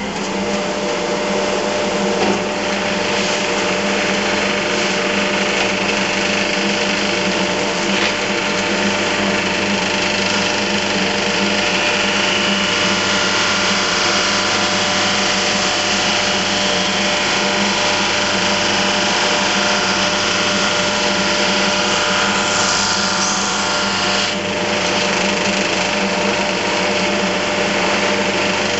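Jet 16-32 Plus drum sander running steadily just after being switched on: a constant machine hum with a couple of steady tones over a broad hiss. From a little before halfway a harsher upper hiss joins in, then cuts off suddenly about four seconds before the end.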